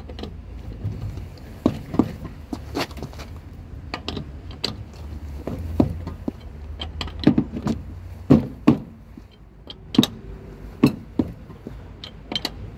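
Metal clicks and clinks of a lug wrench working a car's wheel bolts as they are tightened, irregular sharp ticks over a low steady rumble.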